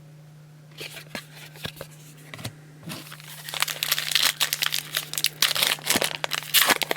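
Foil trading-card pack wrapper being crinkled and torn open: a few light crackles at first, then from about three seconds in, dense continuous crinkling and tearing.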